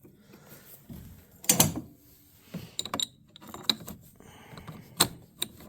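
Hand tools and metal parts being handled: a string of separate sharp clicks and knocks, with a short scrape about a second and a half in.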